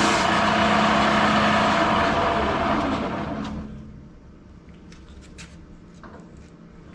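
A strip of 50-grit sandpaper hissing against a white oak spindle turning on a Shopsmith lathe, over the machine's steady hum. About three and a half seconds in, the lathe is switched off and winds down, leaving a few light handling clicks.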